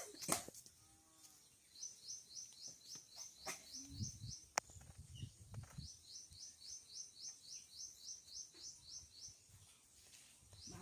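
Runs of rapid, high-pitched chirps, about five or six a second, each run lasting a couple of seconds with short pauses between, and a few sharp clicks.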